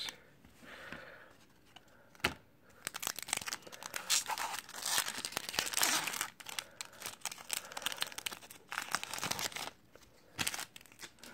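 Foil wrapper of a hockey card pack being torn open and crinkled, crackling for several seconds, with a sharp snap about two seconds in and another near the end.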